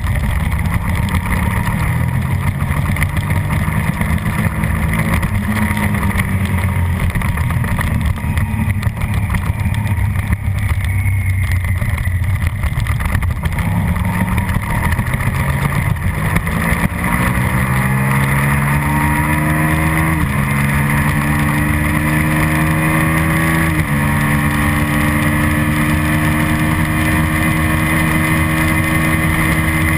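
Suzuki SV650 racing motorcycle's 645 cc V-twin engine, recorded onboard: held at steady revs through a long corner, then accelerating hard onto a straight, its pitch climbing with two upshifts about four seconds apart, and dropping as the throttle is closed at the very end. Constant wind rush lies under the engine.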